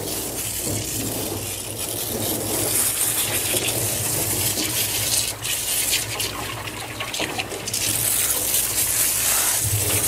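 Handheld grooming-tub sprayer hosing water through a wet dog's coat to rinse out shampoo: a steady hiss of spray with water splashing and running into the stainless steel tub.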